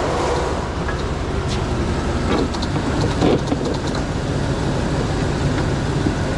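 A high-mileage plow truck's engine running steadily, with a few light clicks and knocks in the middle.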